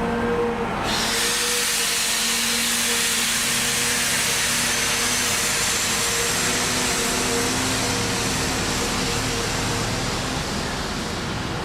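Train at a station: a steady electric hum, joined about a second in by a loud, even hiss that holds until near the end.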